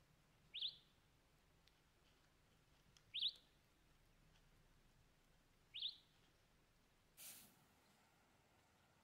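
A bird calling three times, a short sharp chirp about every two and a half seconds, over near silence; a brief rush of noise follows near the end.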